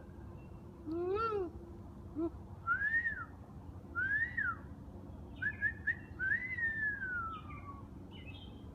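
Someone whistling to a bird: a meow-like arching call about a second in, then a handful of single clear notes that each rise and fall, the last one longer and sliding down.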